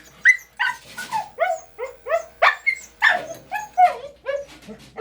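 A dog barking and yipping in a quick run of short, high calls, about three a second.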